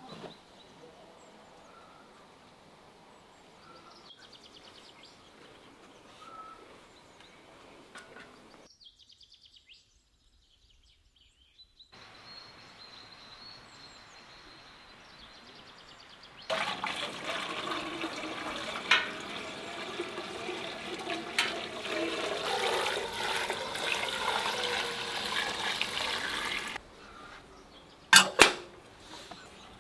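Water running steadily for about ten seconds, then two sharp metal clanks as the top of a samovar is fitted. Faint bird chirps are heard before the water starts.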